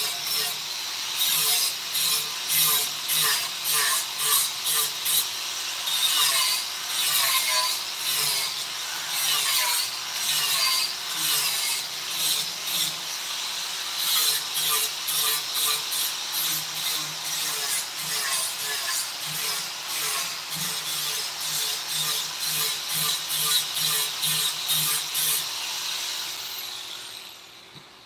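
A hand tool working wood in quick, even back-and-forth strokes, a rasping, sawing sound that fades out near the end.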